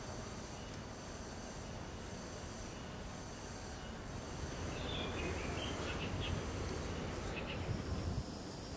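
Steady low background noise of outdoor ambience, with a few faint high chirps about five seconds in.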